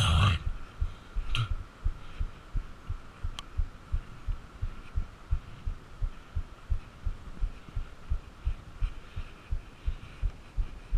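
Regular low thuds, about three a second, typical of a runner's footfalls jolting a body-worn camera and its microphone. A brief loud noise comes at the very start.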